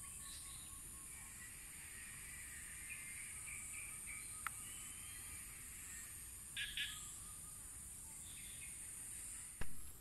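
Tropical forest ambience: a steady high-pitched insect drone with scattered bird chirps and calls, including a warbling call in the middle and two sharp chirps about two-thirds of the way through. A single loud knock comes near the end.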